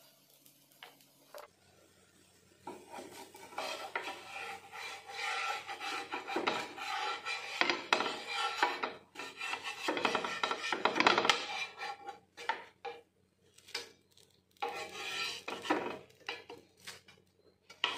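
Wooden spatula scraping and rubbing across a nonstick dosa tawa as a crisp masala dosa is loosened and folded, in irregular rasping strokes with short pauses. Faint for the first couple of seconds before the scraping starts.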